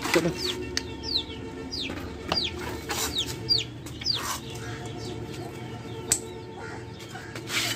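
Young chickens (chicks) peeping: a string of short, high peeps, each falling in pitch, about two a second. A single sharp click about six seconds in.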